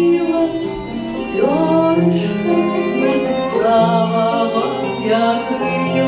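A folk-style song performed live: a melody line with sustained, gliding notes over held low accompaniment notes.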